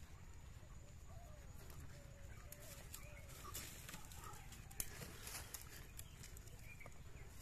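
Faint chicken clucking, with a few light clicks and rustles from dry bamboo sticks being handled.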